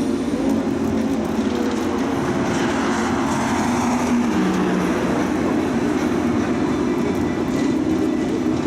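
Car driving at a steady pace: an even engine drone with road and tyre noise, with no revving or gear changes.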